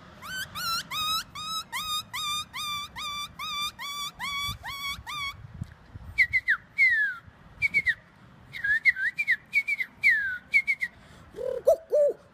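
A man imitating bird calls by whistling: a run of quick rising chirps, about three a second, for some five seconds, then scattered single falling whistles, then lower, quicker warbled notes near the end.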